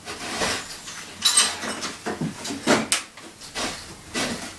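Steel Acrow prop being wound up by hand under a steel beam, its threaded collar turned in short strokes: a string of irregular metallic clinks and knocks.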